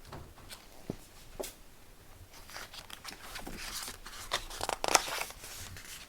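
Pages of a picture book being handled and turned: soft paper rustling with a few light clicks.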